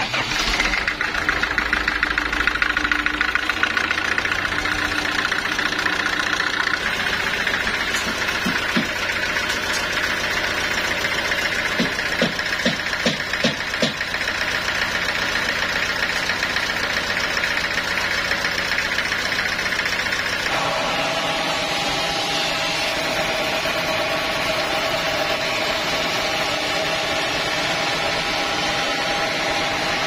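Large inline diesel engine catching and running steadily, with a few quick knocks about twelve to fourteen seconds in. About twenty seconds in, the deep engine hum drops away and a steadier, higher-pitched machine hum takes over.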